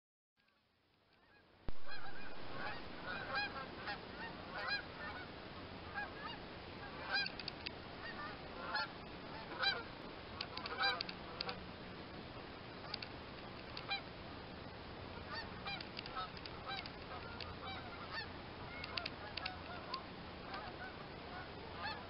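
A flock of geese honking in flight, many short calls overlapping. The calls start abruptly about two seconds in, come thickest in the first half and thin out later.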